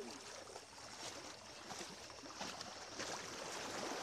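Shallow seawater splashing and sloshing around wading legs, with small waves washing in at the shoreline; irregular splashes over a steady wash of water.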